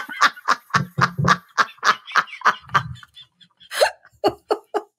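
A woman laughing hard in quick, breathy gasps, about four or five a second, tailing off about three seconds in and picking up again near the end.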